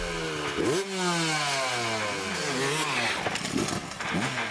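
Motocross dirt bike engine revving on a track: its pitch slides down, jumps up and falls again about a second in, then rises and falls several times as the throttle is worked.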